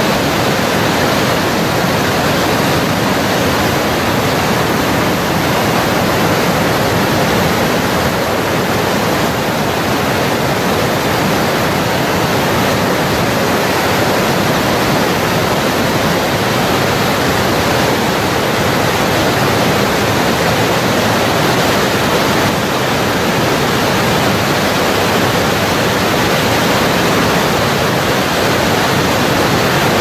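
Rushing whitewater, a loud, even, unbroken noise with no other events standing out.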